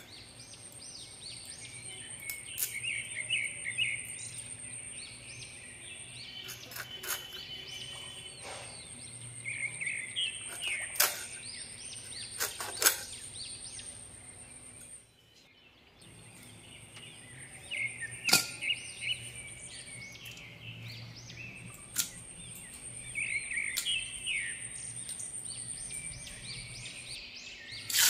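Small birds chirping in bursts every few seconds over a steady thin high-pitched whine, with occasional sharp clicks and scrapes from fish being cut on an upright kitchen blade. The sound drops out briefly about halfway through.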